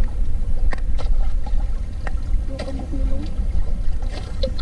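Low, steady rumble of water and wind around a small fishing boat's hull, broken by a few sharp knocks and a faint voice in the background.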